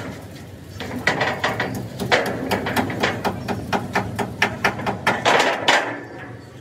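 Hammer blows on steel plate, a quick run of about four sharp strikes a second, each ringing briefly, stopping near the end.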